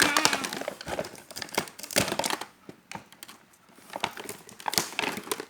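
Toy set's packaging being handled and opened: crinkling and crackling of wrapping, with a quieter pause in the middle before the crinkling resumes.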